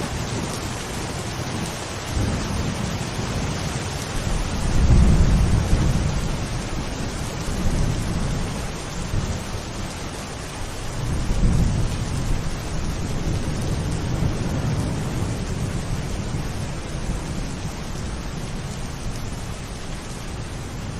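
Steady rain falling, with low rolling rumbles of thunder that swell about five seconds in and again at around eleven to twelve seconds.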